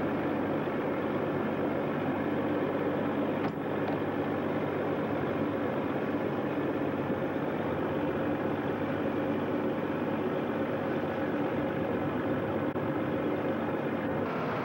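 A fishing boat's engine running steadily, an even mechanical drone heard on deck, with one brief click about three and a half seconds in.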